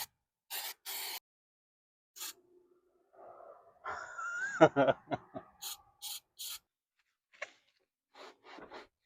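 Short scrubbing strokes on a car's inner fender well, about three or four a second, coming in short runs. In the middle a man's voice exclaims "oh yeah", the loudest sound.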